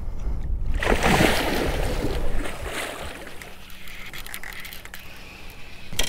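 Water splashing loudly for about a second and a half, starting about a second in, then fading to a softer slosh: a hooked alligator gar thrashing at the surface.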